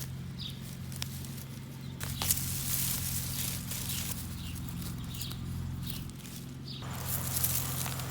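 Digging potatoes out of garden soil: uneven bursts of scraping and rustling dirt, with a few sharp clicks, over a steady low hum.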